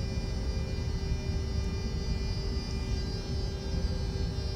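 Steady low rumble with a constant electrical hum inside a VIRM double-deck electric train, heard at the door vestibule.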